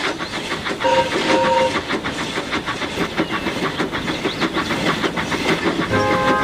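Steam locomotive running with a rapid, even chuffing and rail clatter, and two short whistle toots about a second in.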